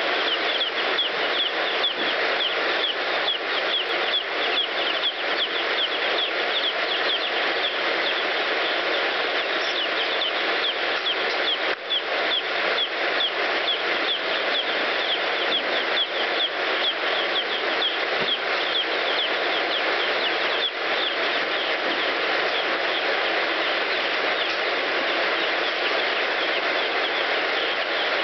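A flock of day-old broiler chicks peeping: a dense, unbroken chorus of many overlapping short, high chirps.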